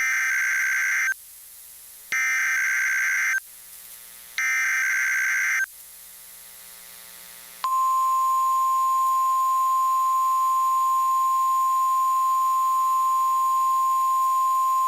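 NOAA Weather Radio Emergency Alert System test signal. Three harsh digital SAME header data bursts, each about a second long with a second's pause between them, are followed about eight seconds in by the steady single-pitch 1050 Hz warning alert tone, held without a break.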